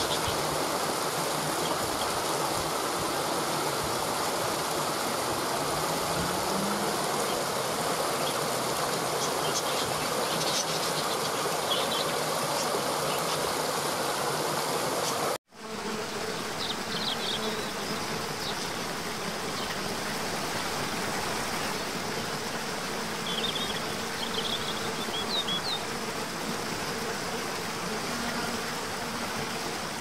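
Water rushing steadily over rocks in a waterfall cascade. The sound breaks off for a moment about halfway and comes back a little quieter, with a few brief high chirps over it.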